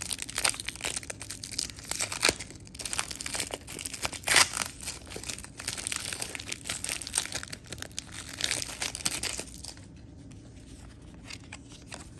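Foil wrapper of a baseball card pack being crinkled and torn open by hand, a dense crackle that dies down about ten seconds in.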